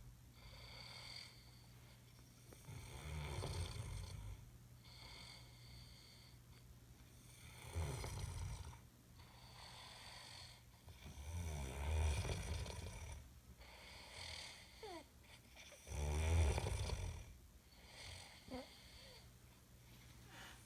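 A man snoring in his sleep: a low rumbling snore about every four seconds, with softer breathing between the snores.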